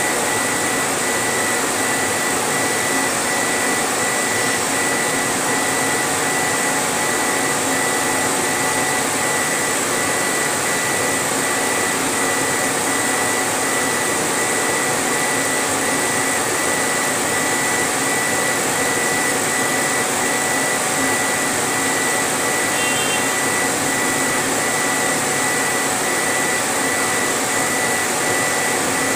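CO2 laser engraving machine at work, its head moving over a board sheet: a steady rushing noise with a thin, steady high whine.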